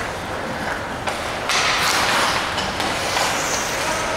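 Ice hockey rink noise during play: a steady rushing noise that grows louder about a second and a half in.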